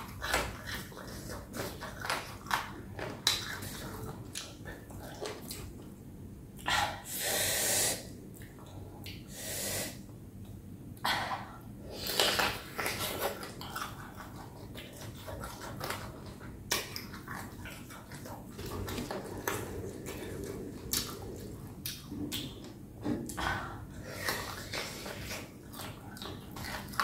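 Close-miked eating of pickled chicken feet: steady chewing with many small wet mouth clicks, broken by several longer sucking, hissing sounds about 7, 10 and 12 seconds in.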